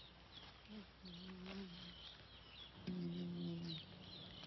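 Songbirds chirping steadily in woodland, with a man humming a slow tune in a few held low notes, the loudest about three seconds in.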